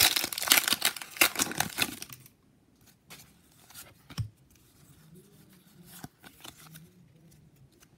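Foil wrapper of a Pokémon booster pack being torn open and crinkled for about two seconds. This is followed by soft clicks and rustles of the cards being handled.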